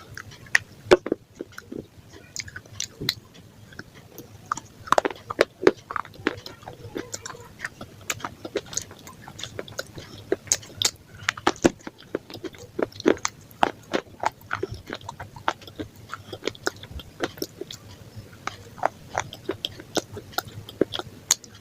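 A person chewing and biting food close to the microphone: irregular wet mouth sounds with many short crunchy clicks.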